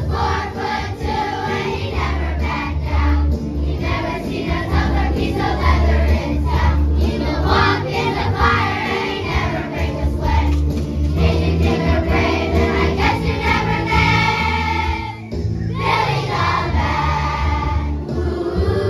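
A children's choir singing over musical accompaniment with a steady bass beat.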